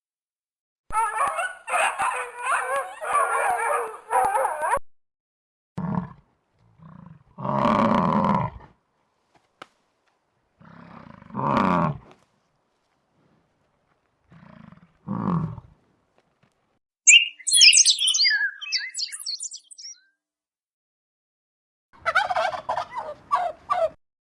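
A string of separate farm-animal calls, one animal after another with short silent gaps between them. There is a long dense cackling call first, then several shorter, lower calls, then a high twittering, and another dense call near the end.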